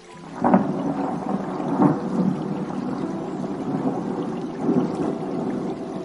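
Thunder: a sudden clap about half a second in, then a rolling rumble that swells again near 2 seconds and near 5 seconds.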